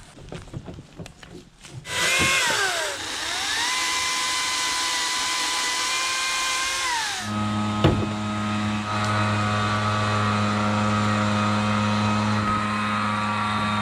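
Brushless battery chainsaw motor whining up about two seconds in, its pitch dipping and then recovering and holding steady. About halfway through it gives way abruptly to a lower, steady mechanical hum, with a single sharp knock a moment later.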